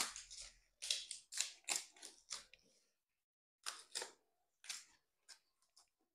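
Fresh banana leaves crinkling and rustling as they are pressed and tucked down around the rim of a steel cooking pot to seal it, in a run of short crisp crackles with a pause about halfway.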